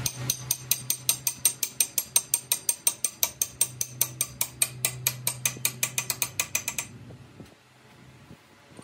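Rapid, even metallic clicking, about six or seven clicks a second, as a steel rod rides over the teeth of a cast gear turned by hand in a lathe chuck. A steady low hum runs underneath, and both stop about seven seconds in.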